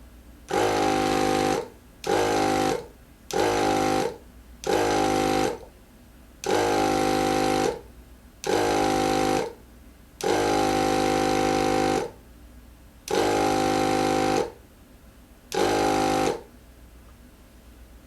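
Small electric tire inflator run in nine short spurts with quiet gaps between, pumping more air into a freshly fitted scooter inner tube. Each spurt starts and stops abruptly; the longest, about ten seconds in, lasts close to two seconds.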